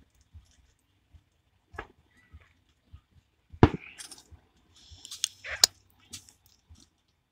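Small firecrackers popping down the street: scattered sharp cracks, the loudest about three and a half seconds in, then a quick cluster of smaller pops around five seconds in.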